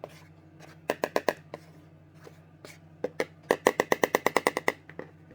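A kitchen utensil clinking rapidly against a bowl, as in beating or stirring: a few strokes about a second in, then a fast run of about eight a second for over a second. A low steady hum runs underneath.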